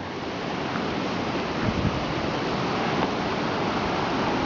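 Whitewater rapids on the Suwannee River rushing steadily over limestone shoals, an even roar of water growing slightly louder.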